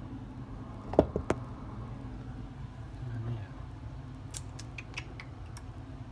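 Knocks and bumps from hands working right at the camera: three sharp knocks close together about a second in, then a scatter of light clicks near the middle. A steady low hum runs underneath.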